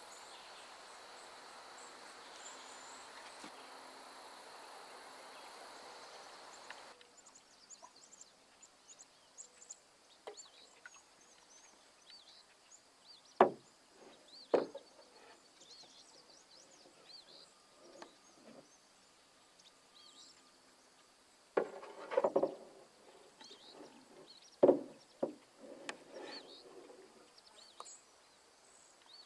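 A canoe paddle knocks sharply against the canoe twice, then several more times with splashy paddle strokes in calm water about two-thirds of the way through. Faint birds chirp, and a steady insect hiss fills the first several seconds.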